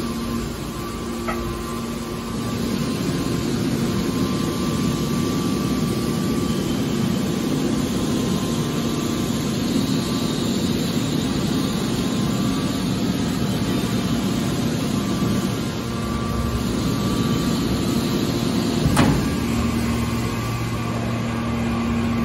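Hydraulic scrap metal baler running: the steady hum of its electric motor and hydraulic pump with a rush of oil flow. A single sharp knock sounds near the end.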